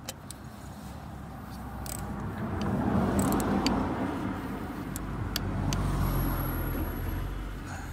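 A motor vehicle passing close by: engine and road noise that swells, eases and swells again before fading. A few faint clicks sound over it.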